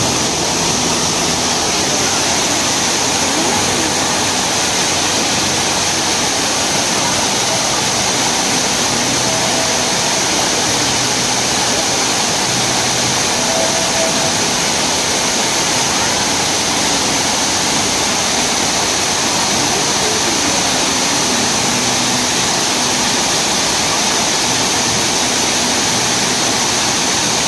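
Waterfall rushing, a steady, unbroken noise of heavy falling water.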